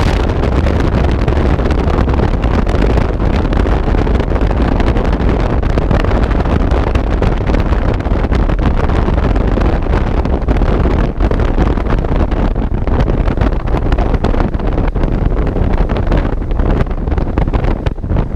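Loud, steady wind buffeting on the microphone of a camera on a moving motorcycle, a rushing rumble heaviest in the lows, with the motorcycle's running and road noise mixed in underneath.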